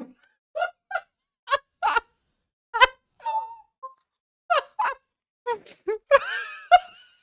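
A woman laughing hard in short, separate bursts, breaking into a longer outburst about six seconds in.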